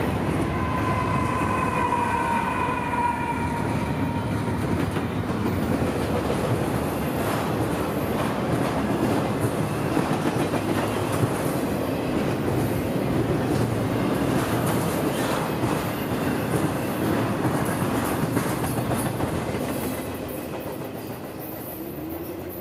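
Intermodal freight train of trailer-carrying flatcars rolling past close by: a steady clatter of steel wheels on the rails that fades as the last cars move away near the end. A high tone with overtones sounds over it for a few seconds near the start.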